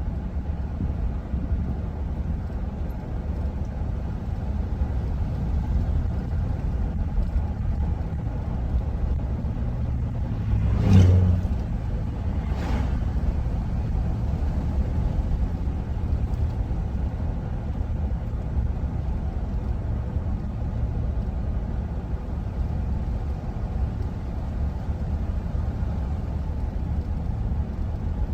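Steady low road and engine rumble of a minivan driving, heard from inside the cabin. About a third of the way in come two thumps about a second and a half apart, the first louder.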